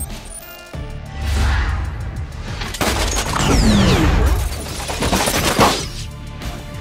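Action-film sound effects over dramatic music: sudden gunfire hits and the whoosh of a bullet in slow motion, falling in pitch, ending in a sharp impact.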